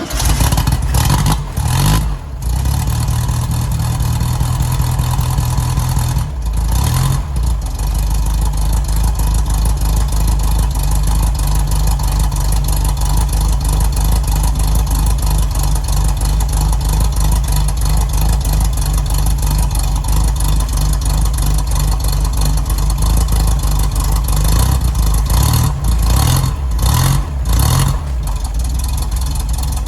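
1974 VW Super Beetle's air-cooled flat-four engine running, with a steady low pulsing beat and a few brief dips and rises in level, fresh oil just added.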